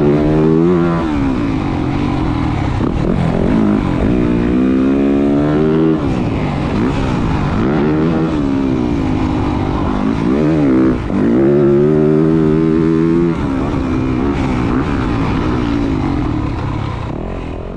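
Yamaha YZ450F motocross bike's 450 cc single-cylinder four-stroke engine being ridden hard, its pitch climbing under throttle and dropping off again and again, fading out at the end.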